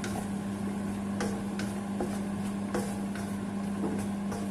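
Light clicks and taps of kitchen utensils, about seven scattered through, as paprika is measured out over chicken frying on low heat, under a steady low hum.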